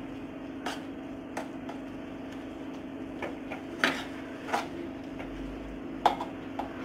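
Perforated steel spatula scraping and knocking against a kadai while stirring and mashing a thick bitter gourd masala: about five short scrapes spread out, the loudest near the end, over a steady low hum.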